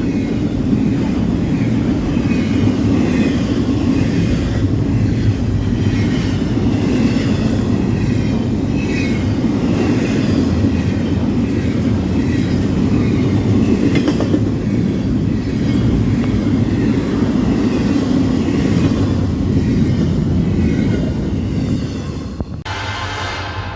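Norfolk Southern freight train rolling past, a steady loud rumble of railcars on the track with faint wheel squeal. The sound changes abruptly and drops a little near the end.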